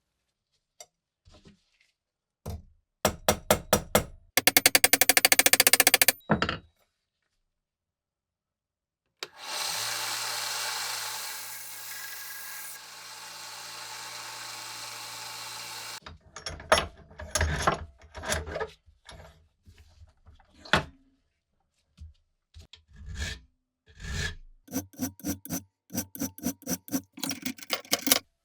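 Hand tool work on rusty metal: bursts of rapid scraping or filing strokes, then a small power tool running steadily for about six seconds, then more irregular scraping and tapping. Each stretch stops abruptly.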